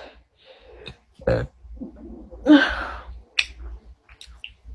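A woman's short wordless vocal noises: a louder one about a second in and the loudest about two and a half seconds in, followed by a few small clicks.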